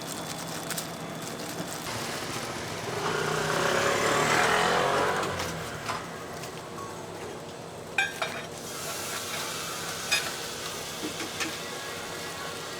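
Beaten egg frying on a hot pan for thin egg sheets (jidan), a sizzle that swells loudest a few seconds in and then settles. Near the end come a few sharp metal clinks of utensils.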